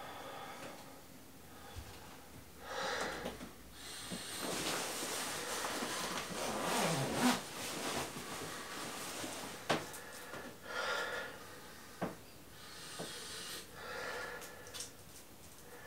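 A man breathing audibly in several distinct breaths, with a longer stretch of rustling and a few small clicks as he handles a bag.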